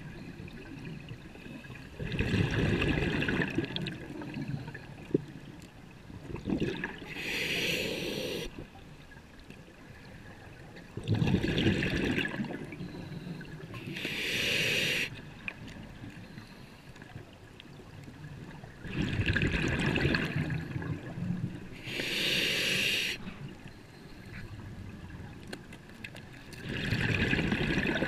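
Scuba diver breathing through a regulator underwater. Each breath brings a hiss from the demand valve and a bubbling rush of exhaled air, in a slow, even cycle of about one breath every eight seconds.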